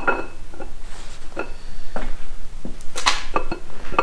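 Camshaft being slid out of an LS engine block. Its lobes clink against the cam bearings and block in a few separate light metallic knocks that ring briefly, the loudest about three seconds in.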